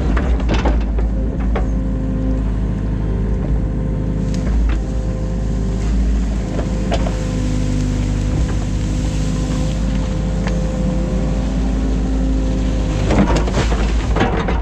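New Holland Kobelco E50.2 mini excavator working, heard from inside its cab: the engine runs steadily under load, its pitch shifting as the boom and bucket move. There are scattered knocks, with a burst of them near the end.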